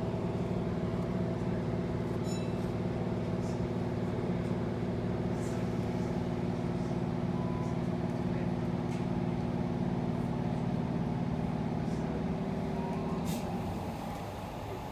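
Inside the carriage of an electric suburban train running between stations: a steady rumble with a hum of several held tones. The hum cuts off about 13 seconds in and the sound drops a little.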